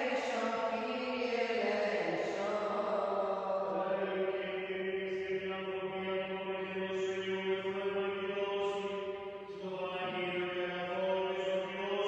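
Greek Orthodox Byzantine chant: a single voice holds long, drawn-out notes. The pitch shifts about two seconds in and again near the end.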